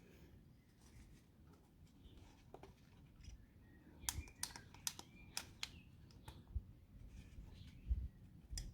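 Light clicks and taps from handling the plastic oil filter housing while a new rubber O-ring is worked onto it, with a cluster of sharper clicks about four to six seconds in and a few dull knocks near the end.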